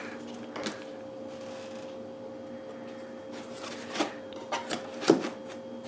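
Handling noise as a white quadcopter drone is set into the foam cutouts of a hard-shell carrying case: soft rustles and a few light clicks and knocks, the sharpest a little after five seconds in, over a faint steady hum.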